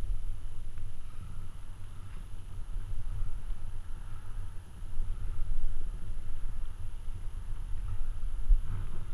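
Wind buffeting the microphone, a gusty low rumble that rises and falls.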